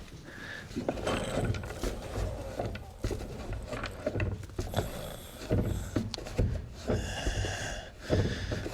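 Hay being cleared off a barn floor: irregular rustling, scraping and knocks. A high-pitched sound joins near the end.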